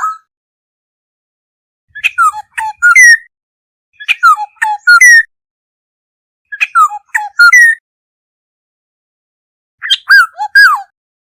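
Black-hooded oriole calling: four short phrases of several sliding, whistled notes, each about a second long, repeated every two to three seconds with silence between.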